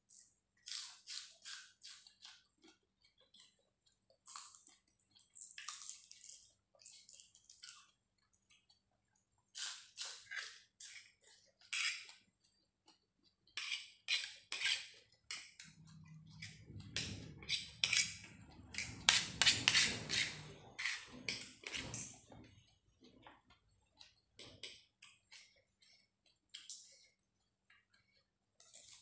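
Close-up eating sounds: a person chewing rice noodles with spicy pounded salad and fresh vegetables, with many short, crisp crunches and clicks. There is a louder, denser stretch of crunching in the middle.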